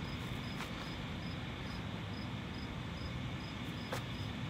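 A cricket chirping steadily in the grass, short high chirps repeated evenly a little over twice a second, over a low steady outdoor rumble, with a couple of brief clicks.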